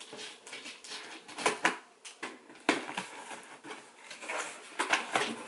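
Cardboard box being opened by hand: flaps pulled back, with irregular crackling, scraping and sharp clicks of the cardboard.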